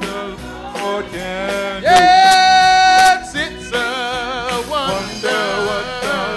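Male gospel singing with vibrato over church band accompaniment, with one long held note about two seconds in.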